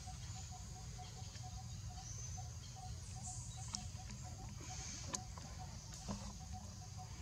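Outdoor ambience: a steady low rumble with a faint chirp repeating about three times a second and a high hiss. A few sharp clicks, the loudest about five seconds in.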